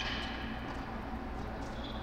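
Steady low hum of the air-supported tennis dome's blowers, with the echo of a racket striking the ball dying away at the start and a tennis shoe squeaking briefly on the hard court near the end.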